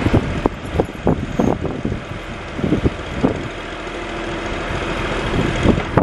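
John Deere backhoe loader running as its rear boom, stick and bucket are cycled through their movements in a start-up check. There are a series of sharp clanks and knocks in the first three seconds, then a steadier machine sound.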